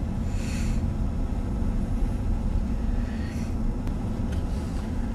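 Car cabin noise while driving on snow-covered roads in a storm: a steady low rumble of engine and tyres, with two faint brief swishes.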